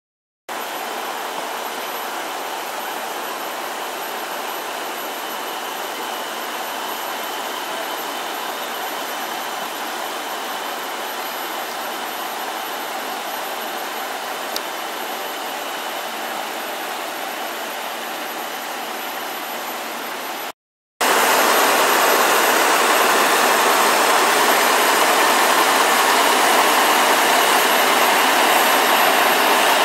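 Fire apparatus engines running steadily at idle, a continuous even engine drone. It cuts off briefly about two-thirds of the way through and comes back louder.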